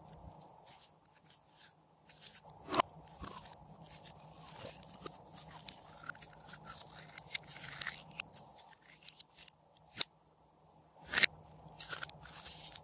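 Glossy slime being stretched, squeezed out of a plastic jar and pressed by hand: wet crackling and sticky clicks, with several sharp louder pops.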